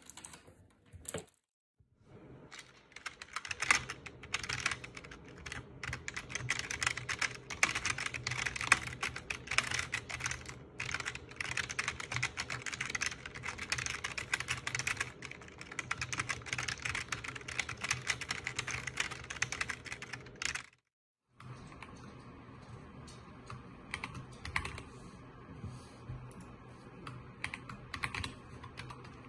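Fast, continuous typing on a membrane gaming keyboard, a dense run of soft key presses. After a short pause about two-thirds of the way through, quieter and sparser typing follows on a SteelSeries Apex Pro TKL mechanical keyboard with unlubed switches.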